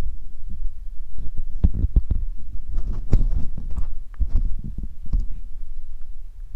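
Wind buffeting the camera microphone: a loud low rumble with irregular gusty pops, densest through the middle.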